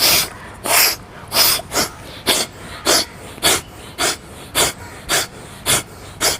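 Rapid, forceful exhalations through the nose, about two short sharp puffs a second, blowing the leftover salt water out of the nasal passages after a jala neti rinse.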